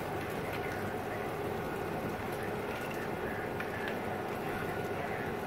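Burning car: a steady hiss and crackle of the fire, with a few faint sharp pops.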